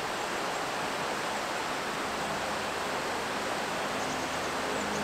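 Shallow, fast-flowing stream rushing and splashing over stones and boulders: a steady, even rush of white water.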